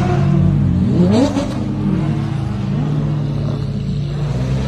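Sports car engines running, with a quick rev about a second in: the pitch climbs sharply, then falls back and holds steady.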